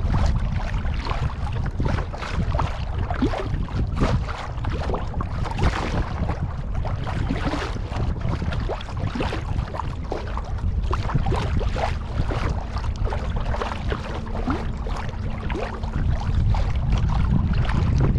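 Water splashing and sloshing around a kayak, with wind rumbling on the microphone. A faint steady low hum comes in about halfway through and fades near the end.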